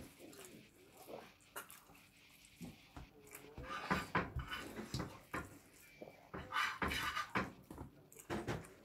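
A person eating: wet chewing and lip-smacking with scattered small clicks, busiest about four seconds in and again near seven seconds.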